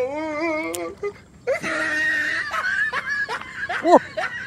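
A man laughing in a wavering, quavering voice, then a long breathy laugh, with a short rising-and-falling vocal sound near the end.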